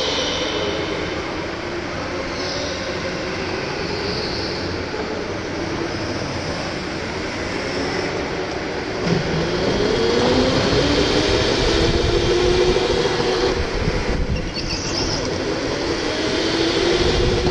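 Electric go-kart's motor whining over rumbling tyre noise, its pitch falling and rising with speed; about nine seconds in the whine climbs steeply as the kart accelerates and gets louder. Short high tyre squeals come and go.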